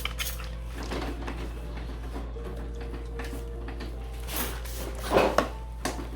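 Storage containers and drawers being handled while a refrigerator is sorted: scattered clatters and knocks, with a louder knock about five seconds in, over a steady low hum.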